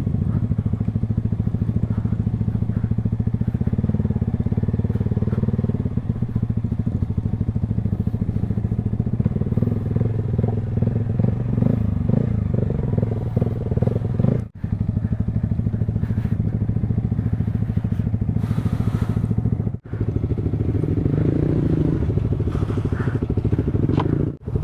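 Motorcycle engine running steadily under way, heard close up, with brief instant cut-outs about 14, 20 and 24 seconds in.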